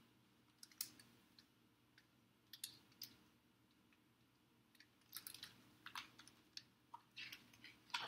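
Faint clicks and soft rustles of a picture book's paper pages being handled and turned, a few scattered at first and coming thicker in the last three seconds.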